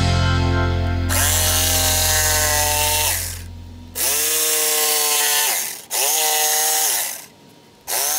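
Corded jigsaw cutting a wooden board in four short bursts. The motor whine climbs as each burst starts and sinks as it stops.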